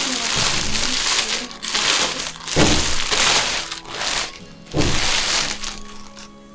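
Plastic packaging crinkling and rustling in repeated bursts as a diaper organizer is unwrapped and handled, with two dull thumps about two and a half and five seconds in.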